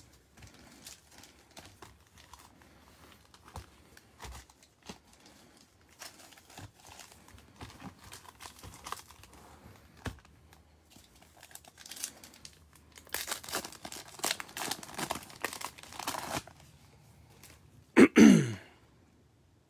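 Foil wrappers of Donruss Optic baseball card packs being handled and torn open, with scattered crinkles and light clicks and a busier stretch of crinkling about two-thirds of the way in. A short burst of voice cuts in loudly near the end.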